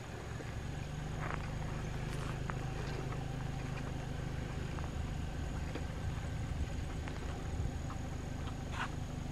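Outdoor ambience: a steady low rumble with a few short, sharp ticks scattered through it, the strongest near the end.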